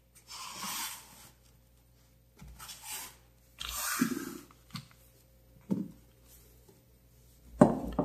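Hands rubbing together, making three short dry rustles, with a light tap on the desk a little later.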